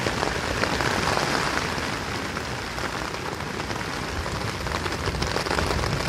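Heavy rain falling steadily during a thunderstorm, a dense hiss of drops that eases slightly midway and builds again near the end.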